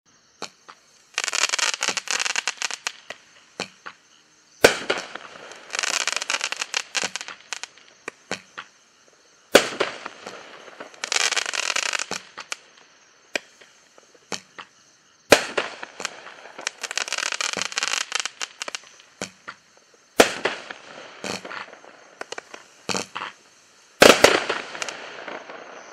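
200-gram consumer firework cake (Bright Star 'Crazy Like a Fox') firing its shots: a sharp launch report every few seconds, each followed by a couple of seconds of dense crackling from its silver crackling tails, with scattered smaller pops in between.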